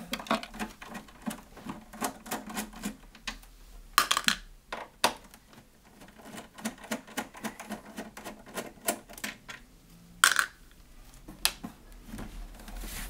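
Long screwdriver working the Torx screws deep in the handle recess of a plastic Macintosh SE/30 case: a run of small irregular clicks and ticks of the bit and screw against the plastic. Two louder clacks come about four seconds in and just after ten seconds.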